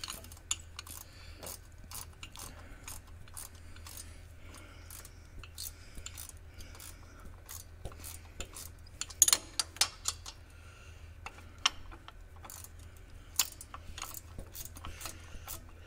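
Small metal clicks and clinks of a combination wrench fitting onto and turning bolts as they are run in, with a cluster of louder clinks about nine seconds in.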